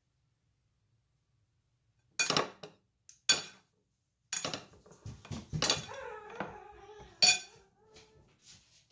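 Kitchen dishes and utensils clattering: a series of sharp clinks and knocks, beginning about two seconds in, with a loud clank near the end.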